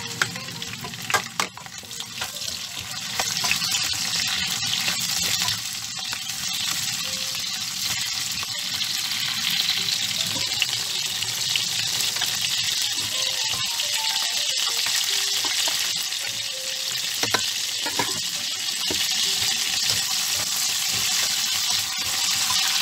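Cubed potatoes, carrots and sliced bell peppers sizzling steadily as they fry in hot olive oil in a non-stick pan, with a few sharp knocks from the spatula in the first two seconds as the peppers go in. The sizzle grows louder about three seconds in and then holds even.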